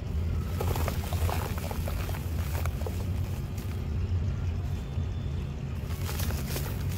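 A dry mud ball crumbling in the hand, with crisp crackling and crunching over the first few seconds. Near the end, dry dust and crumbs trickle out of the fist with a soft hiss. A steady low rumble lies underneath throughout.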